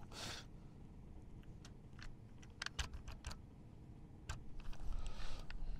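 Plastic strainer basket being screwed by hand onto the Teflon-taped threads of a SHURFLO RV water pump head: scattered light plastic clicks and ticks, with a rubbing, scraping hiss in the second half. A brief rush of noise comes right at the start.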